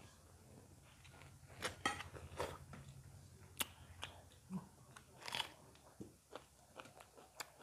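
Two people eating chicken curry and rice with their hands: faint chewing and mouth smacks, with scattered short sharp clicks, a few of them louder, over a low steady hum.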